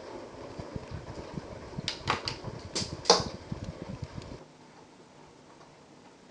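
Thunder: a low rumble building up, with a quick run of sharp cracks about two to three seconds in, the loudest near three seconds. It cuts off suddenly a little over four seconds in.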